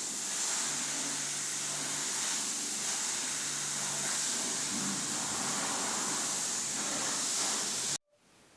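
Steady hiss with a faint low hum underneath, cutting off abruptly near the end.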